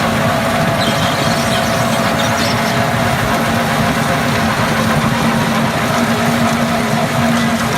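Case Magnum 315 CVT tractor's six-cylinder diesel engine running steadily at a constant pitch, powering an FAE asphalt recycler/planer.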